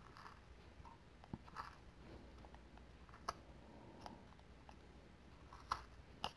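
Faint, short cuts of a small detail whittling knife slicing thin chips from a basswood block: a handful of crisp snicks with quiet scraping between, the loudest a little before the end.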